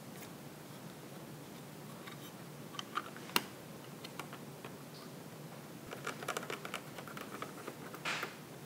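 Small clicks and taps of a metal cover plate being fitted onto a mini PC's case and pressed down: a sharp click about three seconds in, then a run of light ticks and a brief rustle near the end.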